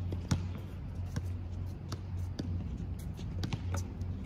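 Scattered sharp taps of footsteps and a tennis ball on an outdoor hard court, at uneven spacing, the loudest about a third of a second in, over a steady low hum.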